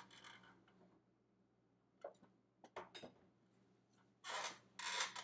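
A few light clicks and taps of things being handled on a kitchen counter, then short rustling scrapes near the end.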